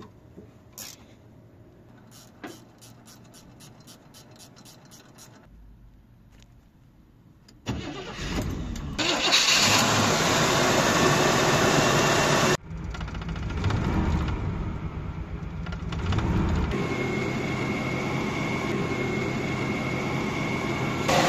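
A wrench ratchets in a quick run of clicks, about four a second, on the belt drive. About eight seconds in, the Chevrolet Camaro Z28's V8 starts and runs on its new belts and replaced power steering pump, and a steady high whine joins in near the end.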